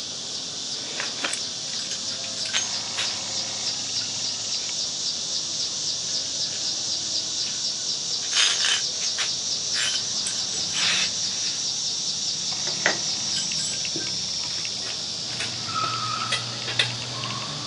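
Insects trilling in a high, steady, fast-pulsing chorus, with a few scattered sharp clicks and knocks from steel parts being handled about halfway through.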